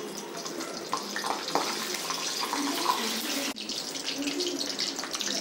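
Hot oil hissing and sizzling steadily in a steel kadhai as mustard seeds fry in it.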